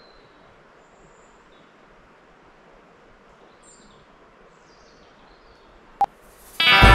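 Faint woodland ambience with a few short, high bird chirps. A single sharp click about six seconds in, then loud guitar music starts near the end.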